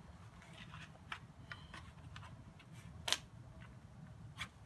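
Faint handling sounds and a few light clicks from a homemade sawdust-and-paraffin fire starter being handled at a kamado smoker's firebox, the sharpest click about three seconds in.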